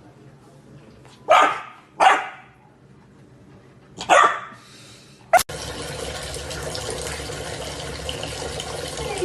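A dog barks three times: two barks close together, then one more about two seconds later. Then, after a sudden click, a steady rushing noise like water running from a tap sets in.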